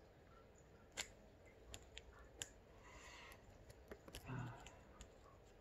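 Faint clicks and snips with a little soft crinkling as a small blade cuts open the package of a CR2032 coin-cell battery.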